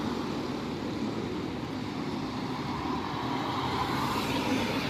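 Steady engine and road noise of a vehicle driving along a highway, swelling a little near the end.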